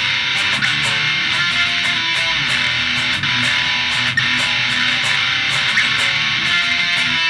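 Montage background music with strummed electric guitar and bass over a steady beat.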